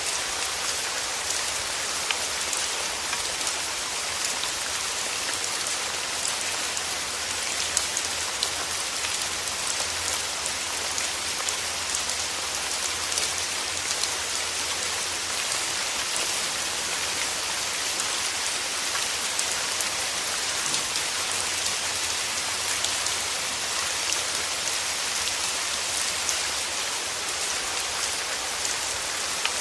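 Steady rain falling and pattering on a surface, an even hiss flecked with many small drop ticks.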